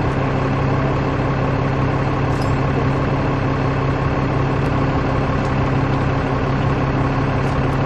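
Crane's diesel engine running steadily at a constant speed, a low even hum that does not change.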